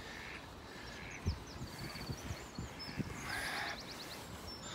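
Small birds twittering and trilling in high chirps, with two soft low thumps, one about a second in and one about three seconds in.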